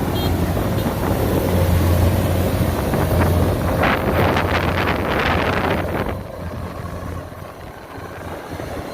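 Kubota DC-93 combine harvester running, a steady low diesel drone with wind on the microphone. It turns rougher about four seconds in, then grows quieter about six seconds in.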